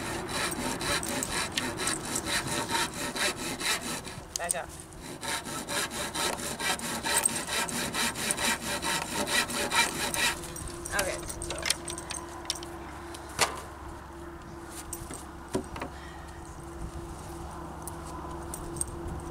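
Handsaw cutting through a 2x4 board with fast, even back-and-forth strokes, breaking off briefly about four seconds in and stopping about ten seconds in. After that, only a few scattered knocks.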